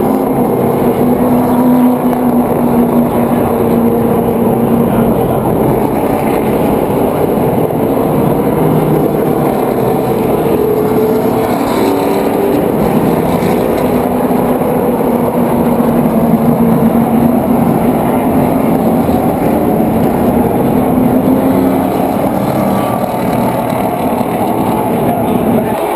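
NASCAR stock cars' V8 engines running loud and steady on the track, the engine note drifting slowly lower and back up.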